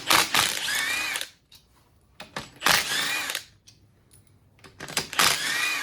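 Power drill with a socket driving out fuel rail bolts: three short runs of about a second each, its whine rising as it spins up, with clicks just before each run.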